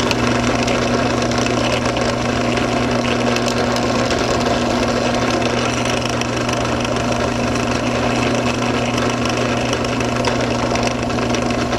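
Benchtop drill press running steadily with a constant motor hum while a 1/16-inch bit drills small pilot holes in a block of wood.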